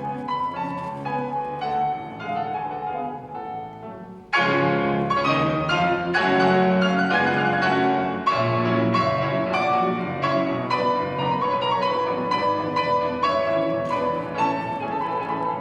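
Piano duet playing a romantic classical piece, with many notes struck and held together; it turns suddenly louder about four seconds in.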